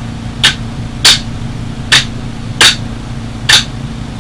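Five sharp, irregular knocks as a tight-fitting fixed stock is tapped onto an AR-15's buffer tube to seat it.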